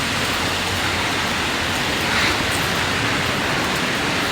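Rain falling, a steady even hiss with no breaks.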